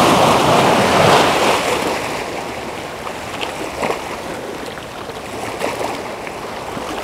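Waves breaking and washing against the rocks of a jetty. The surf is loudest in the first two seconds, then settles to a quieter, steady wash.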